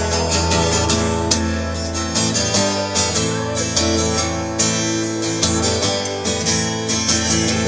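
Instrumental break in a live country song, carried by a strummed acoustic guitar with sustained notes over a bass line, and no singing.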